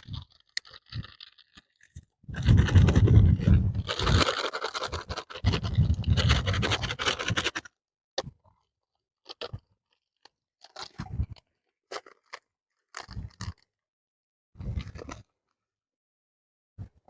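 Dry fishing-bait ingredients (rice bran and flour) being handled and mixed: a long spell of crunching and scraping, then a few short rustling scrapes.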